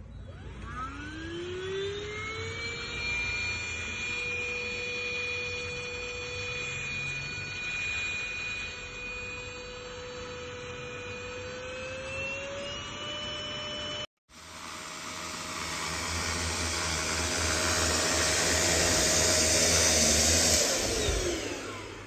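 Jetzt V10 PRO UV corded dust-mite vacuum cleaner switched on: its motor spins up with a rising whine, then runs steadily, and the pitch steps up slightly a little over halfway. After a brief dropout it runs louder with a rushing airflow, then winds down with a falling whine near the end.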